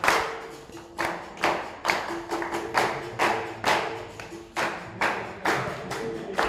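Capoeira roda music: rhythmic hand clapping, about two claps a second, over a steady line that alternates between two held notes.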